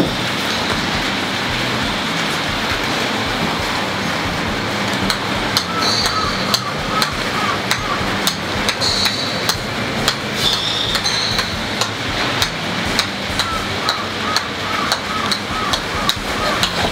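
Repeated sharp taps of a golf ball bounced on the face of a golf club, starting about five seconds in and coming about two to three a second, over a steady hiss.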